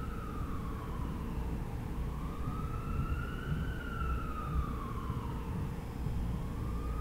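A wailing siren whose pitch slowly rises and falls, about one cycle every four seconds, over a steady low rumble.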